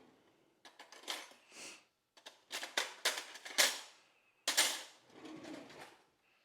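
A run of short clatters and scrapes from plates and utensils being handled, in a few quick clusters.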